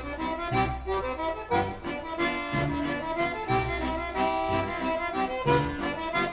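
Background music: an accordion playing a traditional-style tune over a steady, regular bass beat.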